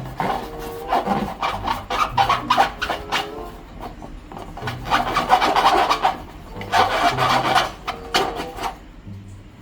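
Long rubber balloons and slime being squeezed and handled, giving squeaky, rasping rubbing in repeated bursts, loudest about halfway through and again a couple of seconds later.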